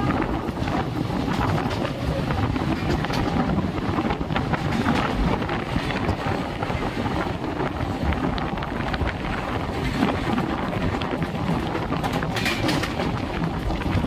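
Passenger train running at speed, heard from an open coach door: a steady rush of wheel and rail noise with wind on the microphone.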